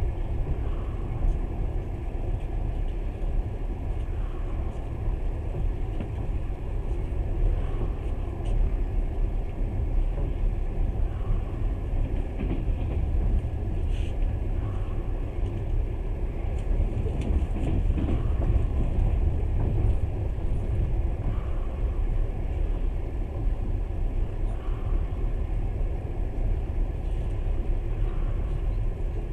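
Passenger train running at speed, heard from inside the carriage: a steady low rumble of the wheels on the track. Faint wheel clicks over rail joints come in pairs every few seconds.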